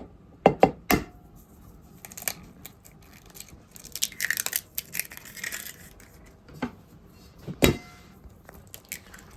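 Sharp knocks: three close together near the start and one more late on. A stretch of rustling noise comes about four seconds in.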